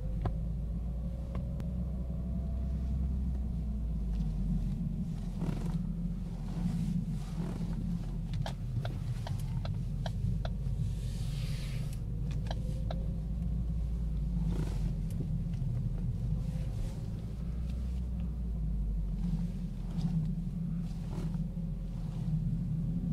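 2012 Ford Focus driving slowly, with a steady low hum and a faint whirring tone that rises and falls with speed, plus a few scattered clicks. The whir is the fault under investigation, worst at city speeds while slowing and slightly worse in turns; it persists on a second set of tires, so the tires are not its source.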